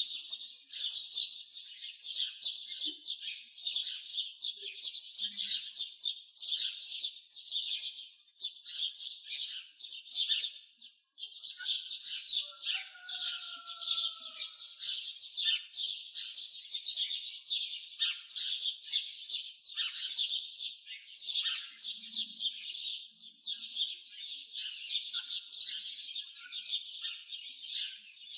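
A dense chorus of many small birds chirping rapidly and nearly without pause, broken off for a moment about eleven seconds in. A fainter, lower sliding call stands out briefly just after the break.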